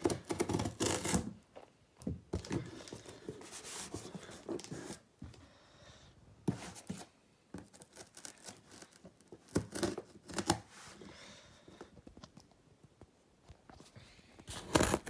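Gift wrapping paper being torn and crinkled by hand in irregular bursts, with the loudest rip near the end.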